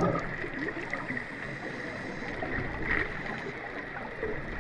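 Underwater ambience picked up by a diver's camera in its housing: a steady muffled water wash with a faint high hum.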